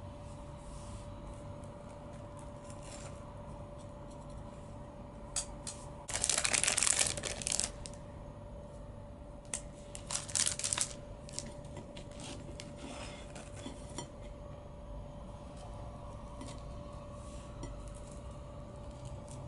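Light handling sounds of a sandwich being put together on a plate: plastic wrapping rustling as a cheese slice is peeled, once about six seconds in and again briefly around ten seconds, with scattered light clicks and taps, over a faint steady hum.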